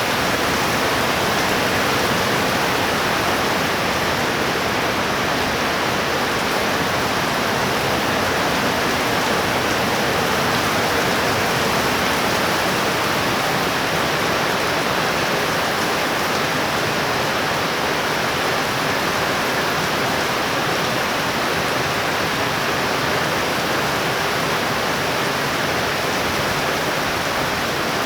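Heavy rain pouring down steadily in a thunderstorm downpour, an even unbroken hiss.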